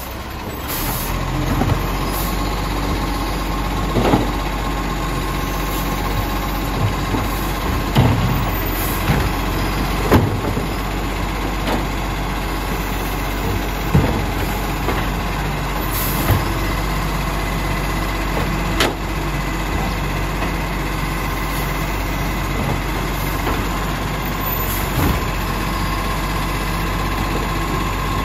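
Side-loader garbage truck's diesel engine running steadily with a hydraulic whine as its automated arm grabs, lifts and tips wheelie bins. Sharp knocks and bangs every few seconds as the plastic bins are shaken out over the hopper and set back down.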